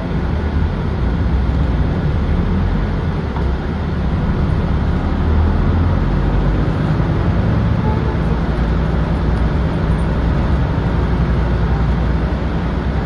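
Cabin sound of a 2007 Nissan Diesel Space Runner RP city bus's diesel engine and running gear as it pulls away from a traffic light and gathers speed, the engine growing louder as it gets under way.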